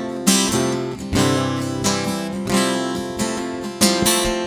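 Instrumental music led by a strummed acoustic guitar, with a strong strum roughly every two-thirds of a second over sustained chords.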